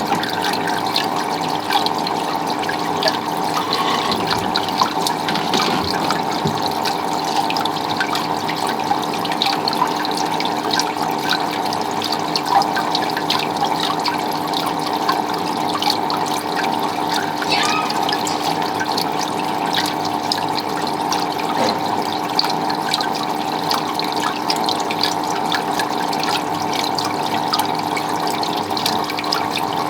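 Water running and splashing steadily without a break.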